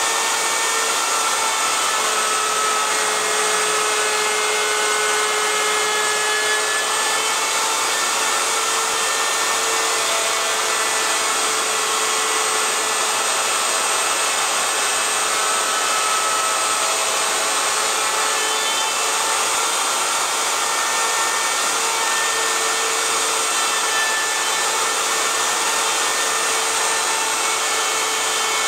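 Table-mounted router running steadily, its bearing-guided cove bit cutting a cove along the edge of a walnut board, with a dust vacuum running alongside.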